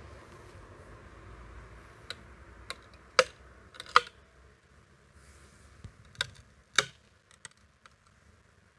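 Oak board splitting along its grain as a froe is levered in the split in a riving brake: a scattering of sharp cracks and ticks as the fibres part, the loudest about three and four seconds in.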